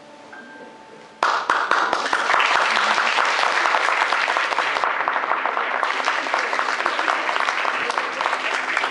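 Audience applauding: a few soft chime-like music notes die away, then clapping starts suddenly about a second in and goes on steadily and loudly.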